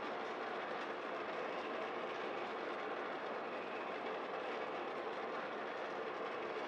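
Home coffee roaster built from a West Bend Stir Crazy popcorn popper and a turbo convection oven, running steadily: the oven's fan blowing hot air while the stirring arm turns the beans. The roast is a few minutes in, before first crack, so no cracking is heard.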